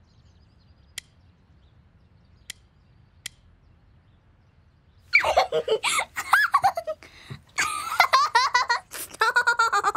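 A young girl giggling and laughing in bursts through the second half, after a few faint clicks.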